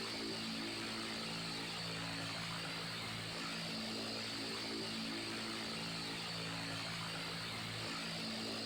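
Electric fan running steadily: an even rush of air with a low hum underneath that wavers slowly every few seconds.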